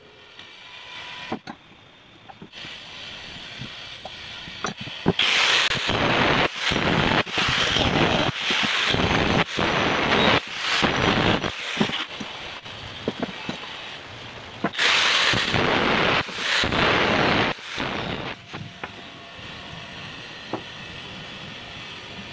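Metalworking on 1-inch square hollow steel tube: a few light clicks of the pieces being handled, then a long run of loud, harsh crackling noise in several bursts with short breaks, from the tool working the steel.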